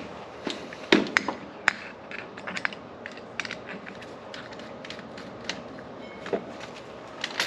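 Irregular sharp clicks and knocks of hand tools being handled and set down, the loudest about a second in.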